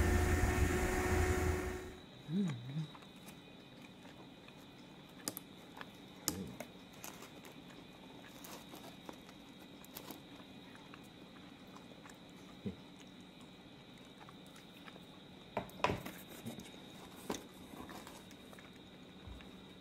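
Outdoor noise with a steady hum for about two seconds, cut off suddenly; then a quiet room with scattered soft clicks and taps as pizza slices are pulled apart and handled, a short wavering whine just after the cut, and a few louder taps near the end.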